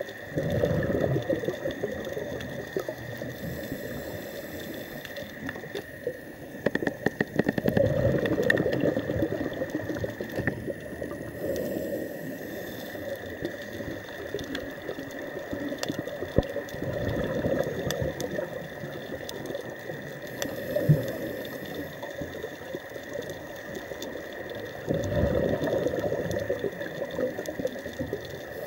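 Underwater sound of a scuba diver breathing: four bursts of exhaled regulator bubbles, roughly every eight or nine seconds, over a steady high tone and faint crackling clicks.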